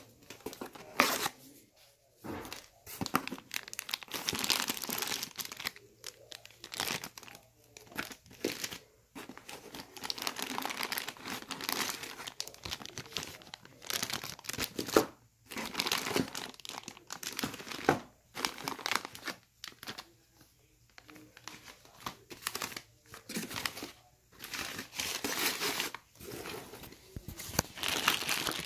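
Crumpled packing paper and plastic bags crinkling and rustling by hand as wrapped items are pulled out of a cardboard box. The sound comes in irregular bursts with short pauses between them.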